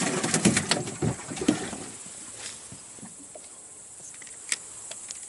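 A freshly caught fish splashing and knocking as it is put down, a jumble of wet slaps and knocks for about a second and a half. Then it goes quiet apart from a steady high insect chirring and one sharp click near the end.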